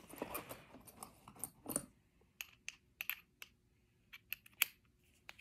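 Faint, irregular light clicks and taps as a small screwdriver and hard plastic parts are handled.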